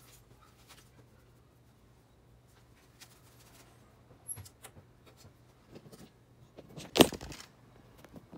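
Quiet handling noises of hand and rag work on a motorcycle's rear frame: faint rubbing and small clicks, then one loud knock about seven seconds in.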